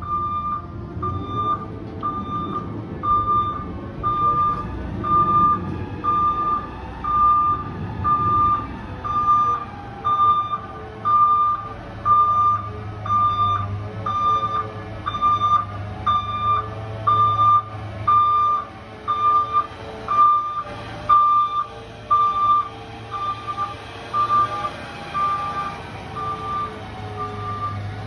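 Garbage truck's backup alarm beeping about once a second as the Peterbilt/McNeilus refuse truck backs up, over the steady low rumble of its engine.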